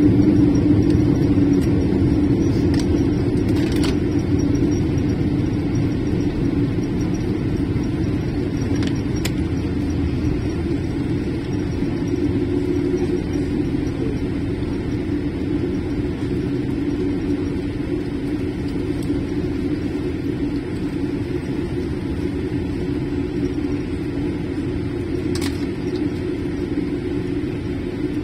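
Cabin noise inside a Boeing 787-8 rolling out on the runway just after landing: a steady low rumble of engines and wheels, with spoilers deployed, that slowly gets quieter as the aircraft slows.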